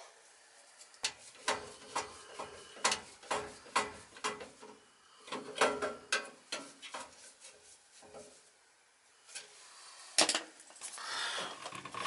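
Hands and a screwdriver working metal parts inside a gas furnace's burner compartment while a replacement igniter is fitted: irregular clicks, taps and knocks, a louder knock about ten seconds in, then scraping near the end.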